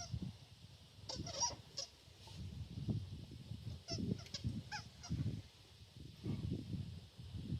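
Rubber squeaky donut toy squeaking in short honk-like squeaks as a dog bites and squeezes it, over an uneven low rumble.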